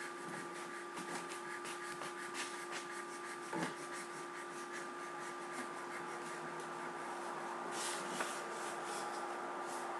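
Steady electrical hum with hiss, the room tone of a computer recording, with scattered faint clicks and rustles and a slightly louder knock about three and a half seconds in.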